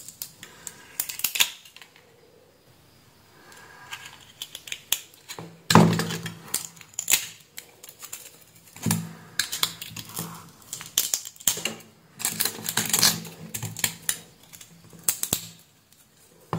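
Irregular clicks, snaps and scrapes of a hard plastic flashlight battery-pack housing being handled and pried apart with a small screwdriver to free its cylindrical battery cell. There is a quieter stretch about two to four seconds in.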